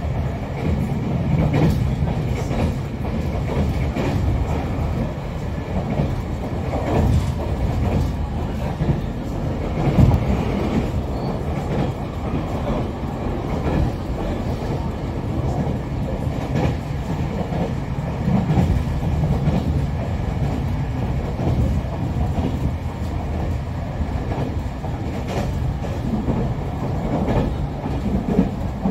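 Cabin running noise of a JR Kyushu 817 series electric train underway: a steady low rumble from the wheels and running gear with a faint hum. Occasional clacks come through as the wheels cross rail joints.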